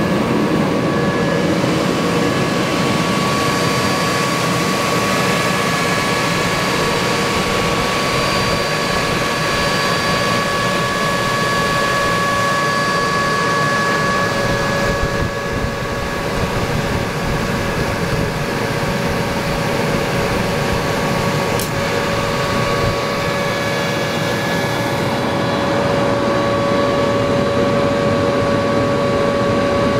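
Atlas Copco GX11 15 hp rotary screw air compressor running steadily, a constant whine over a loud mechanical hum, as it builds tank pressure toward its cut-out of about 130 psi.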